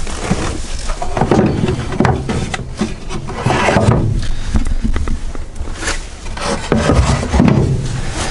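Low wooden drawer sliding open and shut several times, wood scraping against wood in repeated strokes, with a few knocks.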